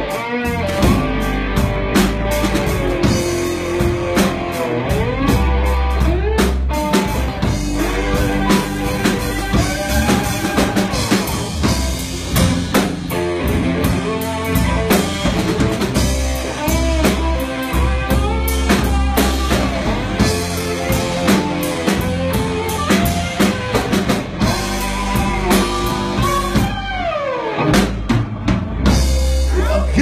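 Live blues-rock band playing an instrumental passage: electric guitars playing bent notes over a drum kit, with a long downward slide about 27 seconds in.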